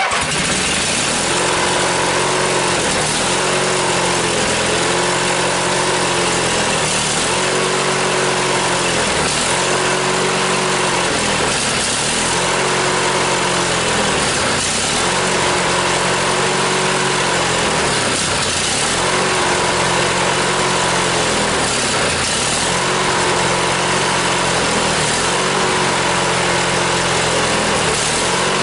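Riding lawn mower's small engine running after a cold start, its speed surging up and down about every two seconds instead of holding steady. It runs with the kill wire disconnected, which points to the short in the kill wire the owner suspected; he thinks the long fuel line it is fed through could possibly be keeping it from running properly.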